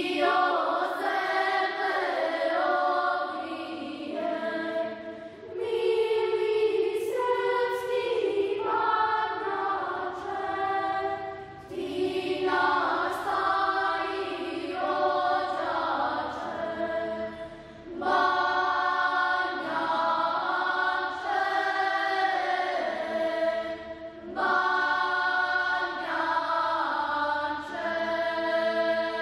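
A choir singing Orthodox church chant: slow, long-held chords sung in phrases of about six seconds, with short breaths between them.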